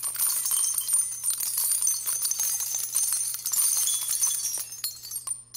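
Jingling bells: a bright, steady tinkle of many small strikes that fades out near the end.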